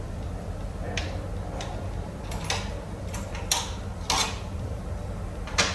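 Metal tools and engine parts clinking and clanking, about seven irregular sharp strikes with the loudest near the end, over a steady low hum.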